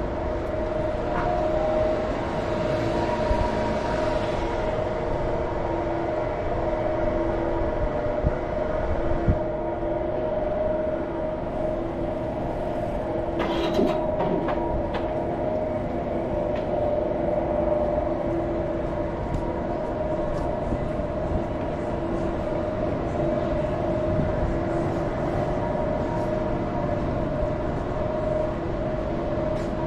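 Continuous train noise: a steady rumble with several held humming tones, and a brief sharp clatter about halfway through.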